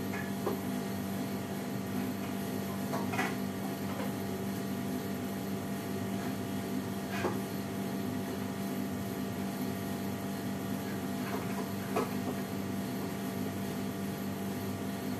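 Dishes and metal cookware clinking now and then as they are washed by hand at a kitchen sink, over a steady low hum.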